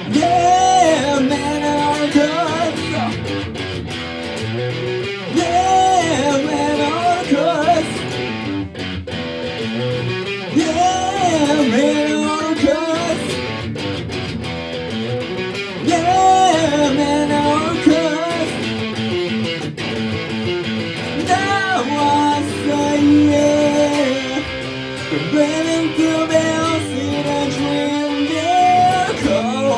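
Electric guitar music: a song with a gliding melody line over sustained chords, loud and continuous.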